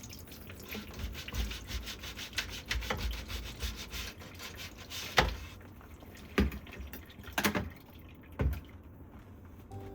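Quick scrubbing strokes for a few seconds, then four separate knocks about a second apart, the first the loudest.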